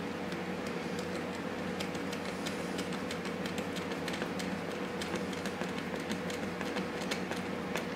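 Small hand screwdriver driving a 3/8-inch screw into a pilot hole in wood: a run of light, irregular ticks and clicks, more of them from about two seconds in, over a steady low background hum.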